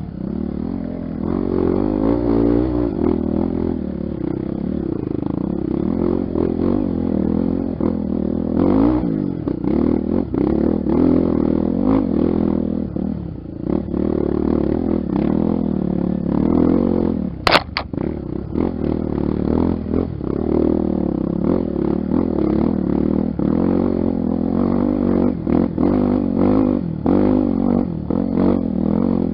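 Honda XR 250 Tornado trail motorcycle running under constantly changing throttle, its engine pitch rising and falling, with rattles and knocks from the rough ground and one sharp knock a little past halfway.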